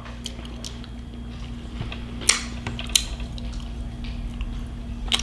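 Close-miked eating sounds: soft wet mouth sounds while eating a bite of cheesecake with whipped cream, with a few sharp clicks, two of them about half a second apart near the middle.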